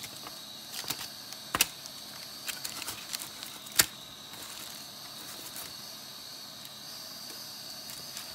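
Aluminium foil crinkling and clicking as hands shift raw pork chops and tuck vegetables among them in a foil-lined pan. The sounds are scattered, with two sharper clicks, one about one and a half seconds in and one near four seconds, over a steady faint hiss.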